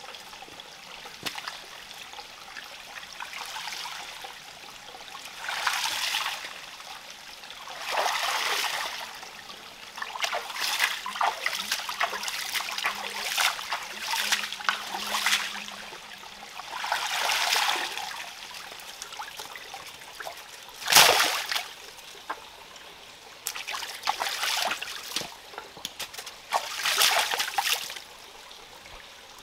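Small rocky forest stream trickling, with repeated bursts of splashing from hands and feet working in the shallow water. A sharp, loudest splash comes about two-thirds of the way through.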